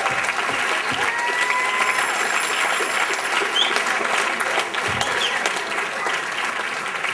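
Audience applauding steadily, many hands clapping together, with a few voices calling out over it.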